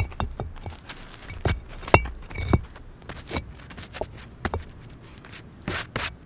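Irregular knocks and clicks of objects being handled, a few with a brief metallic clink.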